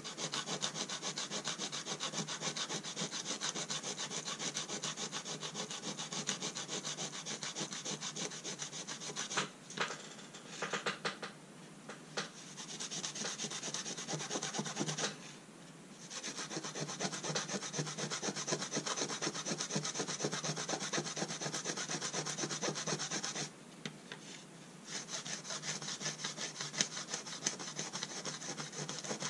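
Brass scale plate of an old spring balance being rubbed fast back and forth by hand against an abrasive: a continuous scratchy rasping. It stops briefly twice, about halfway through and again near the end.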